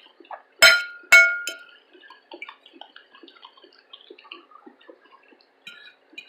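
Tableware clinking twice, sharply and with a brief ring, about half a second apart near the start. Faint scattered clicks follow.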